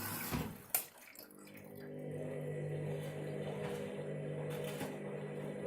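Candy washing machine: a water-like hiss fades out and there is a sharp click about a second in. Then the drum motor starts, its hum rising and then running steadily, as the machine turns the drum for its KG detector to sense the load size.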